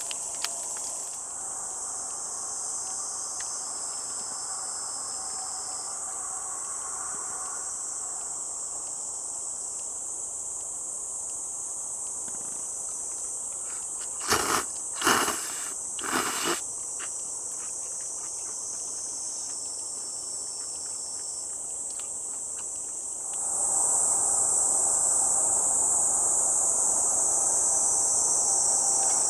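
A steady, high-pitched insect chorus of crickets or similar night insects. About halfway through there are three short, loud noises in quick succession, and near the end the chorus grows louder with a lower hum joining it.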